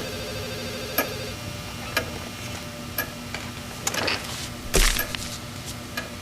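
Clock ticking about once a second over a faint steady hum, with one louder knock about five seconds in.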